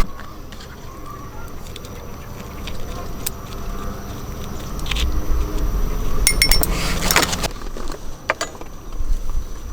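A few sharp, light clinks and clicks, most of them in a cluster about six to seven and a half seconds in, over a low background rumble.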